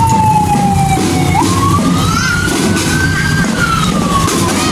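Siren wailing, its tone gliding slowly down, jumping up about a second and a half in, then rising and falling again, over a dense low rumble.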